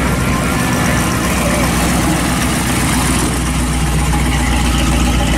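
Hot rod sedan's engine idling steadily as the car creeps past at walking pace, with a low exhaust note.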